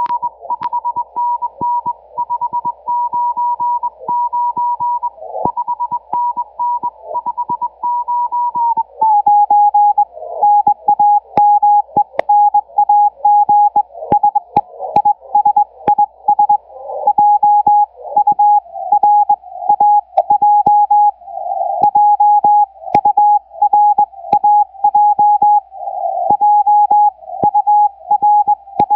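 Morse code (CW) from a 40-metre amateur-band station received on a shortwave WebSDR: a single keyed tone near 1 kHz, with static clicks and crackles. About nine seconds in, the pitch drops as the receiver is retuned, and the keying continues at the lower pitch.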